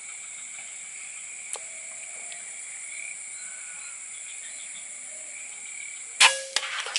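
A single sharp air-rifle shot about six seconds in, followed by a smaller crack a moment later; the shot went low on the duck. Steady insect chirring runs underneath.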